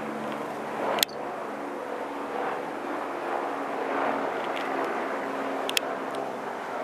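Honeybees buzzing as they fly around the flowers, a hum that shifts a little in pitch, broken by two sharp clicks, one about a second in and one near the end.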